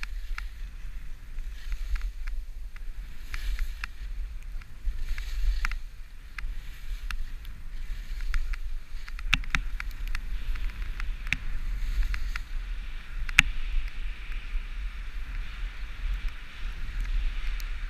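Skis sliding on packed snow, a steady scraping hiss with scattered sharp clicks, the loudest about 13 seconds in, over a constant low rumble.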